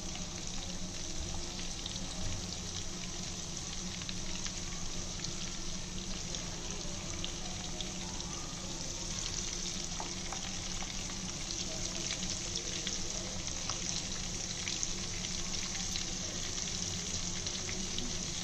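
Marinated barramundi pieces shallow-frying in hot oil in a pan: a steady sizzle with fine crackling throughout.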